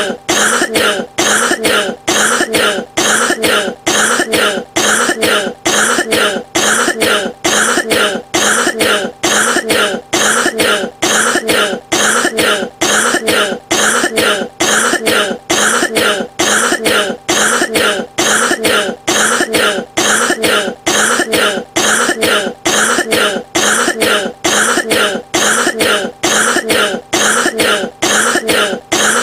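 A person coughing over and over in a long, evenly spaced run of short coughs that does not let up.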